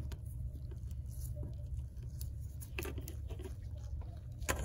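Scattered light clicks and taps of gloved hands handling the detached iPhone X screen and phone parts on a tabletop, over a steady low hum.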